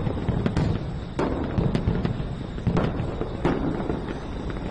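Fireworks going off: irregular sharp bangs over a steady low rumble.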